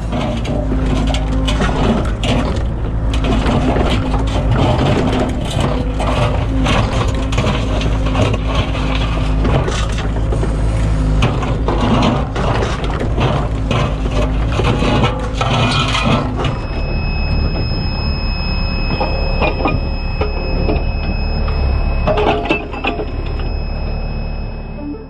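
Excavator working: its diesel engine runs steadily under dense, irregular scraping and knocking of stone and gravel. A steady high whine joins about two-thirds of the way through.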